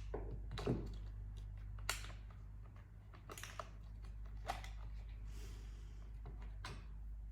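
Scattered clicks and knocks of hand tools and small metal parts being handled during chainsaw teardown, about five separate knocks over several seconds, over a steady low hum.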